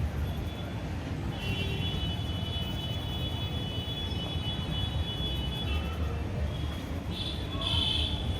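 Street traffic noise: a steady low rumble of vehicles, with a long high tone held for several seconds and two short high bursts near the end.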